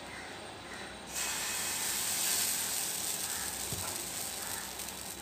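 Dosa batter poured onto a hot tawa, with a sizzle that starts suddenly about a second in and holds steady.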